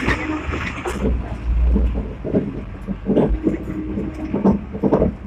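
Sixth-generation Hong Kong tram running on its rails, a low rumble with irregular knocks and clatters from the wheels on the track and the car body rattling.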